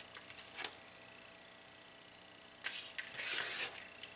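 Soft rustling of shredded cheese being picked up off a plastic mat and scattered by hand, with a short rustle about half a second in and a longer stretch of rustling about three seconds in.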